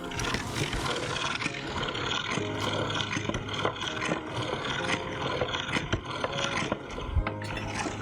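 Meat grinder forcing chocolate cake through its screw and plate: a continuous grinding, churning noise with many small clicks.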